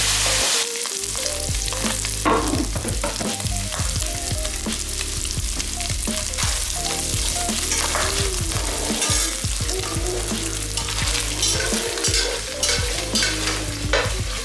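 Pork filling frying and sizzling in a pan while it is stirred, the utensil clicking and scraping against the pan again and again.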